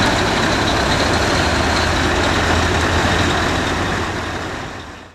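Scania R-series truck's diesel engine running steadily and loud, with a deep low drone. It fades out near the end.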